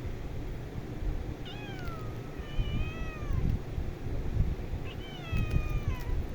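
A domestic cat meowing twice, each meow a drawn-out call of about two seconds that slides down in pitch at the end, over a low rumbling background.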